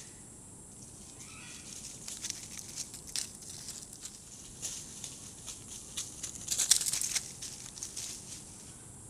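Dry leaf litter crackling and rustling in irregular bursts as monkeys move on the forest floor, densest and loudest about two-thirds of the way through. A steady high insect buzz runs underneath.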